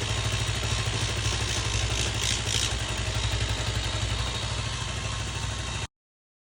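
110 cc motorcycle engine idling with a steady clatter, the noise the video blames on the kick-starter. It cuts off suddenly near the end.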